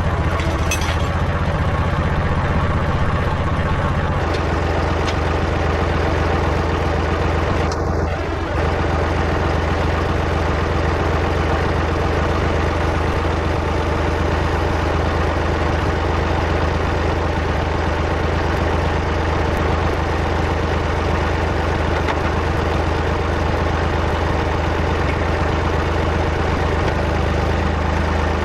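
An engine running steadily with a strong low hum, changing slightly about four seconds in.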